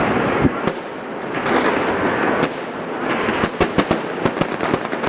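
Aerial fireworks bursting: a dense run of sharp bangs and crackles over a steady hiss, with the reports coming thickest about three and a half to four and a half seconds in.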